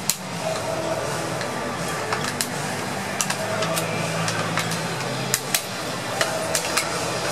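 Ballpark ambience before a game: a steady murmur with faint held tones, broken by scattered sharp clicks at irregular intervals.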